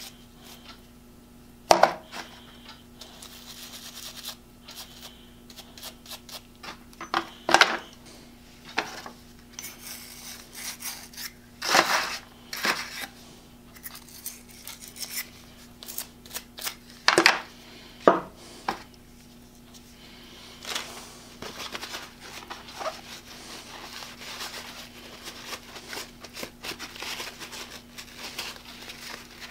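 Small metal eggbeater-drill parts knocking and clicking against a plastic tray as they are picked up and handled, in irregular sharp clicks and clunks. Later on, a paper towel rustles as the parts are wiped. A faint steady hum runs underneath.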